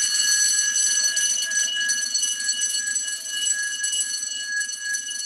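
Steady, high-pitched electronic alarm tone with a buzzing undertone.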